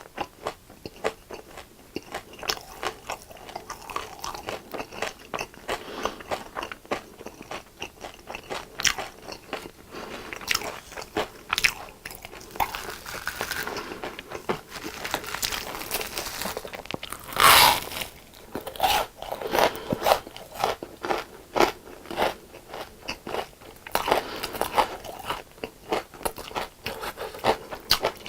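Close-miked biting and chewing of crisp deep-fried food, many crackly crunches in an irregular run, with the loudest bite about two-thirds of the way through.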